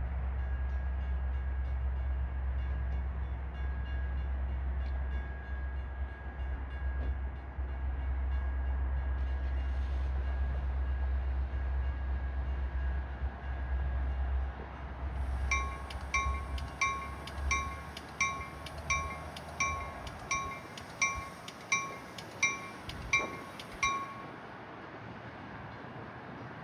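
A Metra commuter train rumbles at the platform and fades out. About halfway through, a train warning bell rings rapidly, about twice a second, for around eight seconds and then stops, leaving a faint wind hiss.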